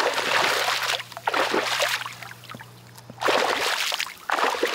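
A small hooked pike thrashing at the water's surface, splashing in four short bursts.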